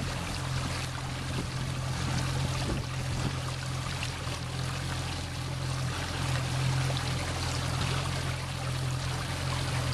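Water rushing and trickling along a moving boat's hull over a steady low engine drone.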